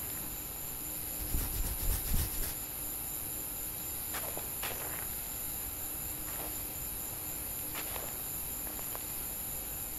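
Sparse foley of soil crunching and scraping under a small clay figure moving through dirt: a cluster of low thuds about a second and a half in, then a few faint scrapes, over a steady high hiss.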